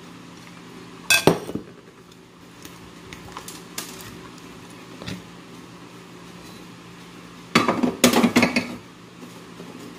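Ceramic plates clattering on a stainless-steel counter: a sharp clatter about a second in, and a longer run of clinks and knocks near the end.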